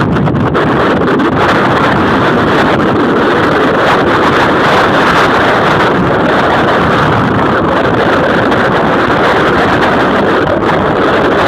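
Loud, steady rushing of wind blowing across the microphone, an even roar with no tone or rhythm in it.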